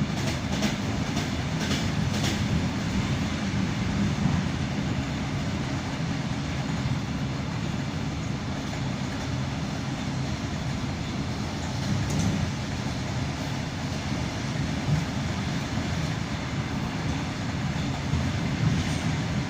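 ED9M suburban electric train running along the line, a steady rumble with the wheels clattering over the rail joints; a few sharp clicks come in the first couple of seconds and once more about halfway through.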